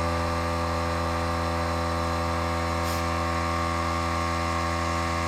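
Electric air compressor running steadily, its motor giving a constant even hum as it refills its tank.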